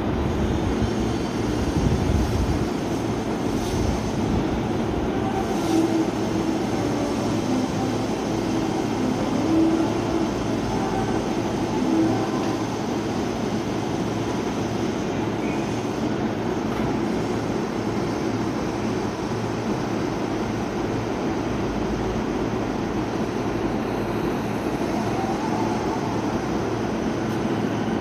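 JR East E233-series electric commuter train at a station platform: steady rumble and hum of the train standing and slowly pulling away.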